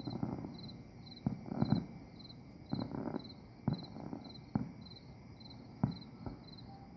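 Distant fireworks going off in an irregular string of bangs, one every second or so. Underneath, a cricket chirps steadily about twice a second.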